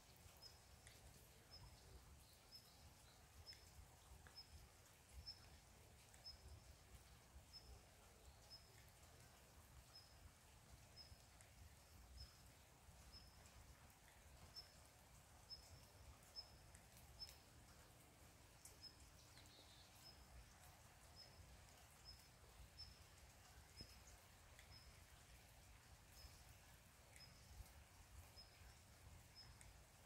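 Faint forest ambience: a short, high chirp repeats about one and a half times a second over a low rumble, with scattered soft ticks of light rain.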